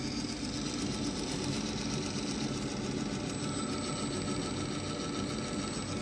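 Electric motor running on a Danfoss variable-frequency drive, a steady hum with a faint higher whine that comes in about three seconds in, while the drive's output frequency is brought down from 50 Hz to slow the motor.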